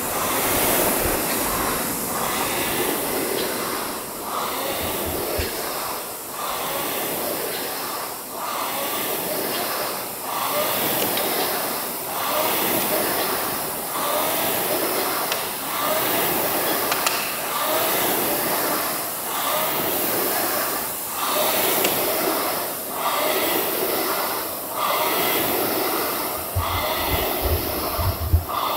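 Air-flywheel fitness machine whirring under hard work, the fan surging and easing about every two seconds with each stroke.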